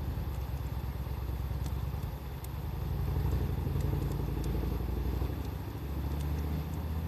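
Wood fire crackling with a few sparse sharp pops, over a louder low rumble that swells and fades.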